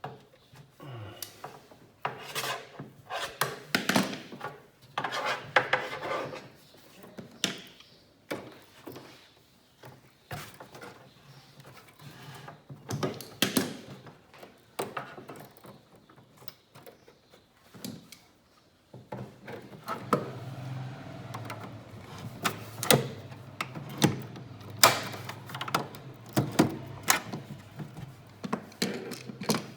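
Workshop handling noises: irregular knocks, clicks and rubbing as thick power cables and tools are worked at the car's wiring. A steady low hum joins about two-thirds of the way in.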